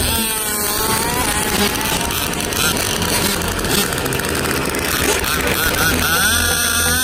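Radio-controlled drag cars running: a motor's pitch falls away in the first second, then another climbs in pitch from about five seconds in.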